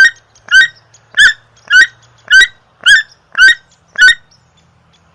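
Red-headed woodpecker calling: a series of eight short, harsh calls, evenly spaced about two a second, stopping about four seconds in.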